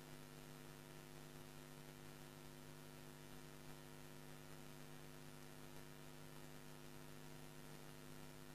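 Near silence with a faint, steady electrical mains hum from the studio's sound system.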